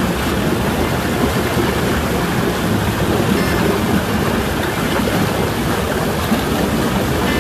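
Steady, loud rushing water noise in a pool area.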